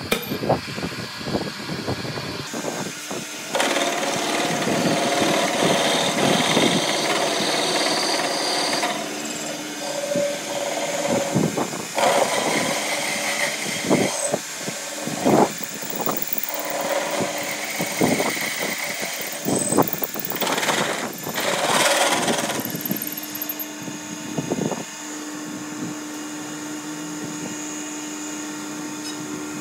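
Metal lathe turning a welded steel shaft, its cutting tool machining down the weld bead at the joint: stretches of cutting noise broken by many sharp knocks. A steady hum sets in near the end.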